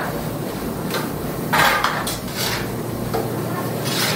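Shovels scraping and scooping spilled animal feed off the floor, in several separate strokes over a steady low hum.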